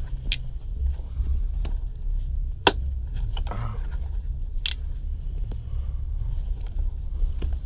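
Steady low rumble of a moving passenger train heard inside the carriage. Scattered small clicks of handling sit over it, with one sharp click about two and a half seconds in.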